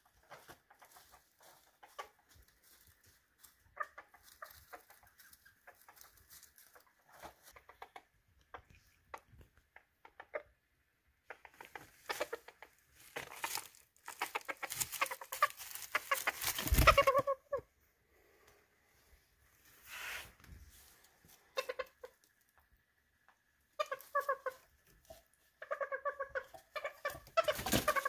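Miniature serama bantam chickens clucking. At first there is quiet rustling with scattered clicks, then a loud stretch of clucking and commotion through the middle, and quick repeated clucks near the end.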